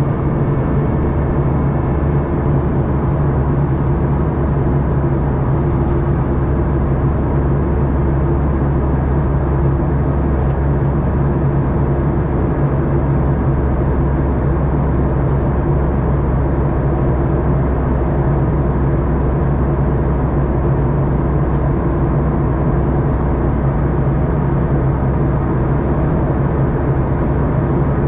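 Steady cabin drone of a Boeing 737-800, heard inside the cabin from a window seat: the hum of its CFM56 engines mixed with the rush of air, running evenly without change.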